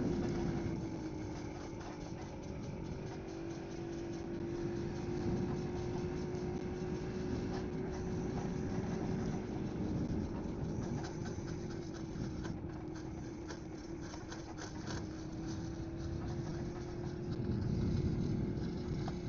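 1951 BSA special motorcycle's engine running at a fairly steady speed while riding, its note holding almost level with slight rises and falls, over a constant rush of wind and road noise.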